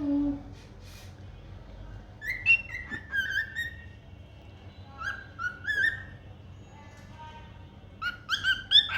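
Cockatiel giving short chirping, whistled calls in three bursts, each a run of quick rising and falling notes.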